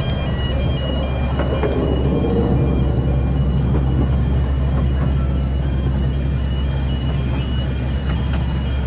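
Small children's ride train running along its track, with a steady low hum and rumble. A simple tune of short high electronic beeps plays over it and fades out about six seconds in.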